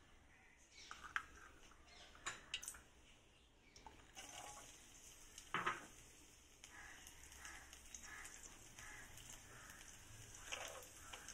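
Raisins frying in hot ghee and coconut oil in a stainless steel kadai: a faint, steady sizzle that starts about four seconds in, with a few light clicks and one sharper knock a little past the middle.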